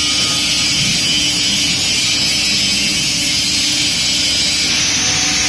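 Hindustan Hydraulics EHPe 100 CNC press brake's hydraulic system running steadily. A constant hum with an even hiss over it.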